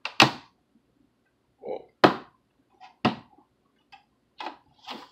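Several sharp clicks and knocks of hard plastic as parts of a plastic boat display stand are handled and pressed into its base.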